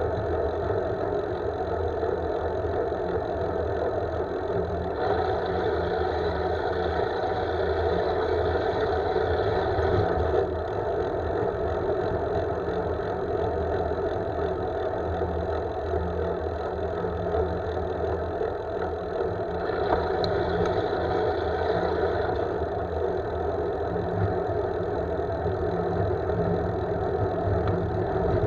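Steady road and wind rumble picked up by a handlebar-mounted camera on a road bike rolling along a paved street.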